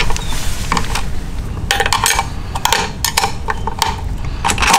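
Irregular metallic clinks and scrapes of a wrench working the bolts of a stainless-steel transducer mounting bracket as they are tightened, over a steady low rumble.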